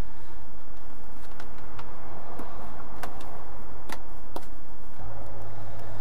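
Hands handling a battery-tender charging lead among the plastic panels and cables around a motorcycle's steering head: rustling, with several sharp plastic clicks, the loudest in the second half.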